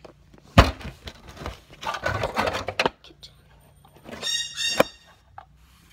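Camera and toy handling noise: a sharp knock, a stretch of rustling, then a short high-pitched squeak ending in a click near the end.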